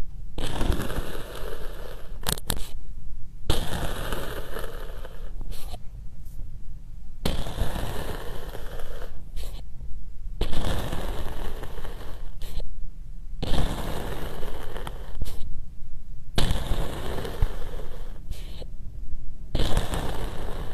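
A thin metal rod stabbed again and again into packed sand, each push a crunchy crackle lasting a second or two, about seven times with short silent gaps between.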